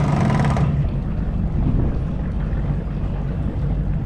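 Boat engine idling with a steady low hum, and a brief hiss in the first split second.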